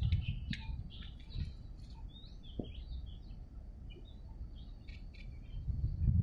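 Small birds chirping and twittering in short, scattered calls, with a low, uneven rumble at the start and again near the end.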